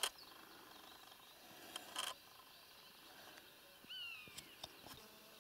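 A single short, harsh bark from a roe deer about two seconds in. Near four seconds in comes a brief, falling whistled call.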